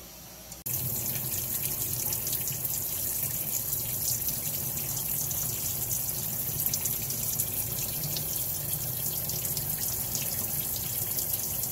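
Cold water running hard from a kitchen tap into a stainless steel sink, with hot noodle water being poured out of a pan into the same stream. It starts suddenly about a second in and runs steadily.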